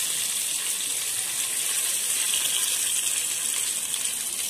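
Soaked dried red chilies sizzling in hot oil with curry leaves and whole spices, a steady hiss.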